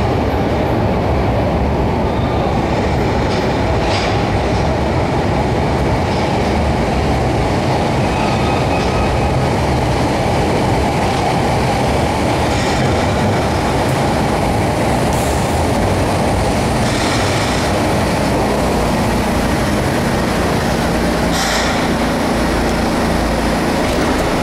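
SEPTA Broad Street Line subway train running into the station and braking to a stop, a loud steady rumble of wheels and cars. A steady hum comes up near the end, with a short hiss of air shortly before the train stops.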